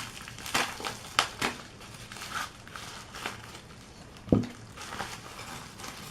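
Packaging crinkling and crackling as a parcel is opened by hand, with scattered sharp crackles and one louder knock about four seconds in.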